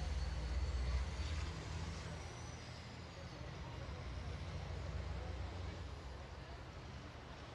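Diesel engines of racing semi trucks rolling at low speed in a line: a steady low rumble, loudest about a second in, then easing off.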